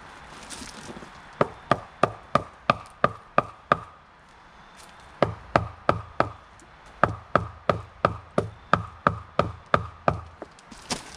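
Hammer rapping on a wooden board that holds two plastic jack-o'-lantern molds full of wet concrete: sharp knocks about three a second, in two runs with a short pause between. The tapping vibrates the concrete to work out air bubbles and give a smooth finish against the mold.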